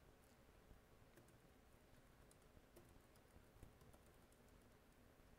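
Faint typing on a computer keyboard: irregular soft key clicks.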